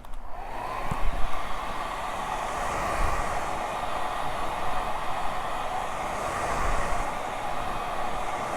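Handheld hair dryer switched on and spinning up within the first half second, then blowing steadily, drying freshly sprayed wig adhesive.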